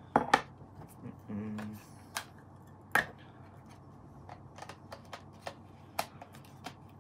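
Scattered plastic clicks and taps from handling a Canon EOS 80D camera body and its EF-S 10-18mm lens as the lens is fitted and twisted onto the mount.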